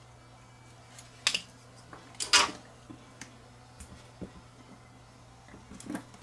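Workbench handling noises: a handful of sharp clicks and clatters as tools are put down and a power-supply circuit board is moved about on a silicone work mat. The loudest comes a little over two seconds in, over a faint steady hum.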